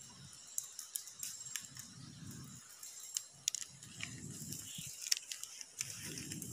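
Dry palm fronds crackling and scraping against a handheld phone, with scattered sharp clicks of handling noise and low muffled rumbles about every two seconds.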